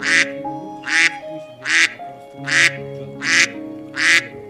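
A duck quacking: six short quacks, evenly spaced less than a second apart, over background music with held notes.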